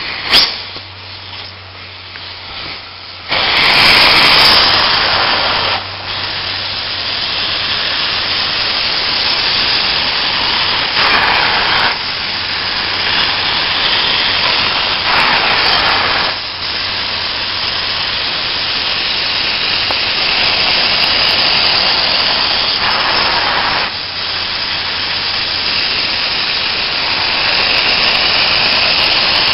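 Truck-mounted hot-water extraction (steam cleaning) upholstery tool rinsing and vacuuming chair fabric: a loud hissing rush of spray and suction that starts about three seconds in and keeps going, dipping briefly a few times.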